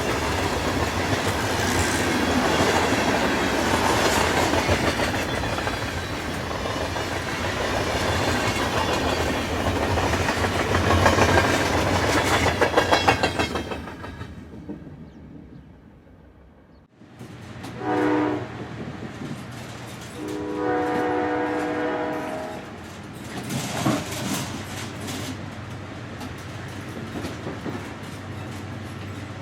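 Train passing with its wheels clattering on the rails, fading away. Then a train horn sounds twice, a short blast and then a longer one of about two seconds, over a quieter steady rumble of the train.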